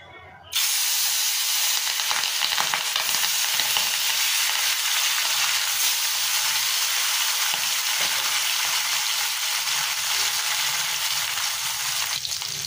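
Pieces of gurjauli (threadfin) fish frying in hot mustard oil in a kadai: a loud, steady sizzle that starts suddenly about half a second in as the first piece goes into the oil, with more pieces added as it goes on.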